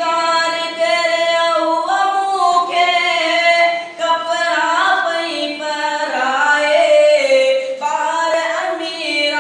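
A student singing a song about mother: one voice carrying a slow melody with long held notes.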